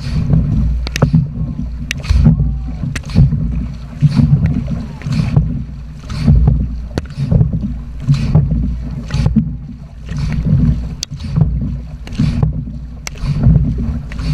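Dragon boat crew paddling hard: paddle blades catching and splashing through the water in a steady rhythm of about one stroke a second, over heavy wind rumble on the microphone.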